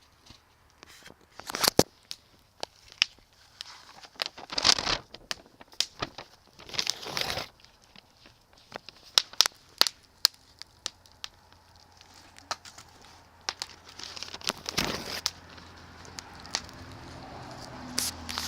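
Wood campfire crackling, with irregular sharp pops and a few longer rustling bursts.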